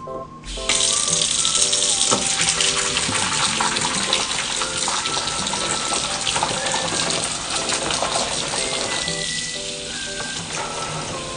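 A kitchen tap running steadily, starting abruptly just under a second in and easing near the end, under background music.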